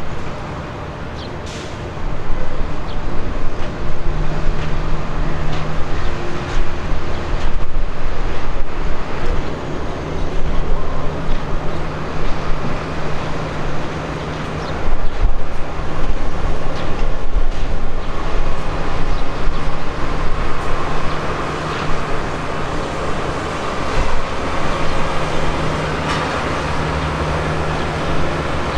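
Jet airliner engines running: a steady, loud rumble with a low hum underneath.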